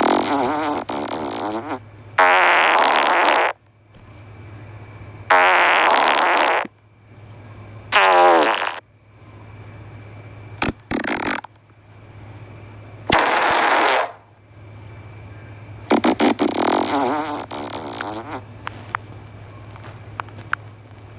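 A string of fart sounds, about seven, each a buzzing blast lasting one to two seconds, with short pauses between them; the last runs longest. A steady low hum runs underneath.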